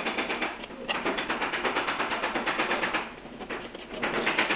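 A fast, even mechanical clatter of many clicks a second that keeps going, dipping briefly twice.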